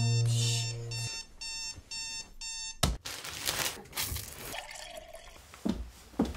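Timex digital alarm clock beeping about two and a half times a second, cut off with a click about three seconds in. A shower then runs, with a couple of thuds near the end.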